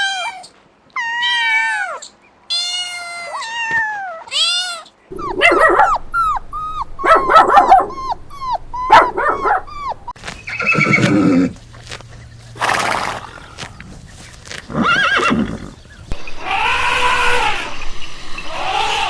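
Farm animals calling one after another: a series of short falling calls, then louder, longer calls, the last one drawn out for a couple of seconds.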